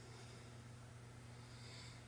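Near silence with a steady low hum: the quiet pause between a sleeping man's snores.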